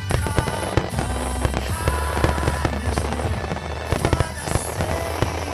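Aerial firework shells bursting, with many sharp bangs and crackles in quick irregular succession, over music playing throughout.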